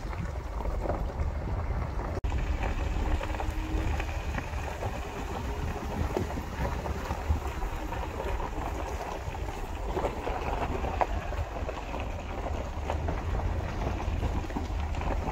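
A car driving slowly, heard as a steady low road rumble with tyre and wind noise. The sound cuts out for an instant about two seconds in.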